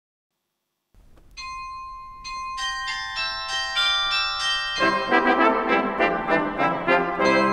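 After a second of silence, a small thirteen-bell carillon starts ringing: single bell notes struck one after another, each left to ring on, building into a melody. About halfway through, a brass ensemble of trumpets and trombones joins in under the bells.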